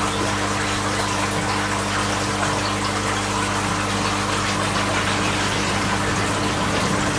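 Steady electric hum of a water pump with water running into the koi fry tank.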